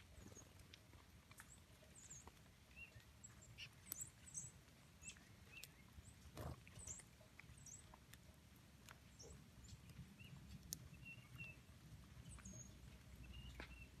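Faint outdoor ambience with scattered short, high chip notes and brief calls from small songbirds, plus a few soft ticks.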